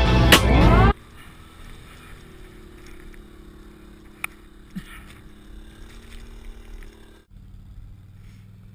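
Music that stops abruptly about a second in, then a quieter, steady hum of an ATV engine running as it tows a skier through snow. The engine hum drops lower after a cut near the end.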